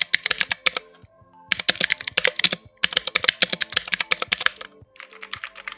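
Fast typing on a 60% mechanical keyboard with clicky Otemu blue switches: four runs of rapid, rather noisy key clicks with brief pauses between them.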